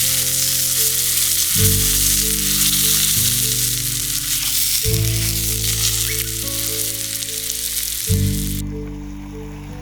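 Meat sizzling as it grills over a wood fire, a dense frying hiss that cuts off suddenly near the end. Background music with slow, held chords plays underneath.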